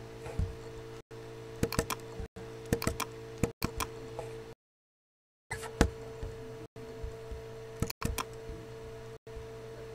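Computer keyboard keys clicking in small clusters of a few keystrokes each, over a steady electrical hum. The sound cuts out for about a second midway.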